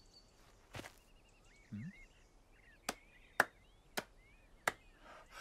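Five sharp, short knocks at uneven spacing, with faint bird chirps in between.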